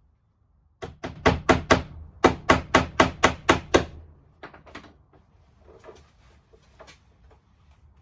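Hammer driving cable clips to fix an electrical cable along a wall: a quick run of about a dozen sharp blows in two groups, then a few lighter taps and handling sounds.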